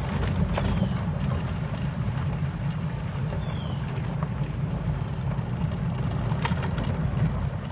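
Small vehicle driving along a dirt road, heard from on board: a steady low rumble of motor and tyres, with a few light rattles.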